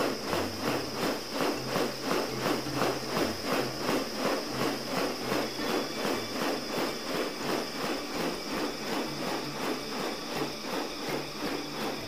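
Background music with a steady beat of about three pulses a second over a low bass line that steps between a few notes, with a thin steady high tone running through it.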